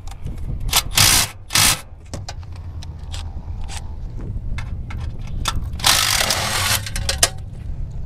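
Hand tools scraping and rubbing on a metal electrical junction box as its mounting screws are taken out. There are short scrapes about a second in and a longer one around six seconds in, with a few light taps, over a steady low rumble.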